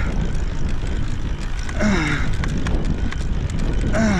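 Strong headwind buffeting the microphone in a continuous low roar. A cyclist's strained, groaning exhalation of effort comes through it about two seconds in and again near the end.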